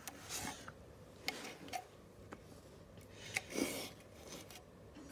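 Handling noises from the fan housing: scattered light clicks and taps and rubbing, with a louder scrape about three and a half seconds in. The fan's motor is not running.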